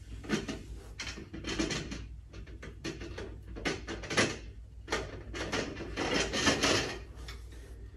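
Plastic filter sump (housing) of a carbon pre-filter being screwed back onto its head by hand: a run of irregular scraping and rubbing noises as the plastic threads and parts turn against each other.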